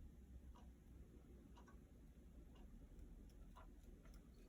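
Faint clock ticking, about one tick a second.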